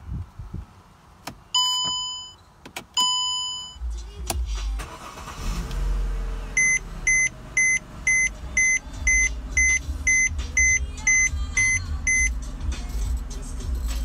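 Mercedes C300 (W204) V6 being started with the key: two chimes from the instrument cluster, then the engine cranks and catches about four seconds in and idles steadily. A warning beeps about twice a second over the idle for several seconds, then stops.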